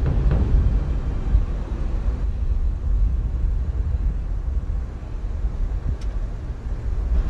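A deep, steady rumbling drone, with a faint tick about six seconds in.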